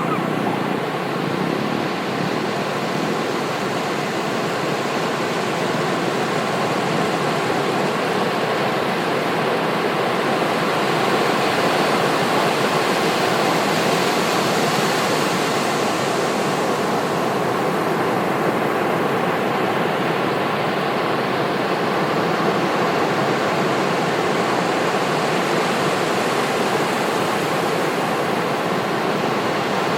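Ocean surf breaking and washing up the beach in a continuous rushing wash, swelling slightly around the middle.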